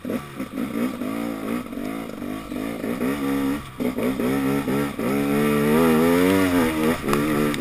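2014 KTM 250 XC-W two-stroke dirt bike engine pulling away and revving up and down with the throttle along a trail, its pitch rising and falling. The revs drop briefly about three and a half seconds in and again about seven seconds in.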